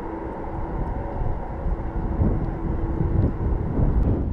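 Boeing 747-446 with GE CF6-80C2 turbofans running at low ground power, a steady jet drone with a faint held tone, with wind buffeting the microphone.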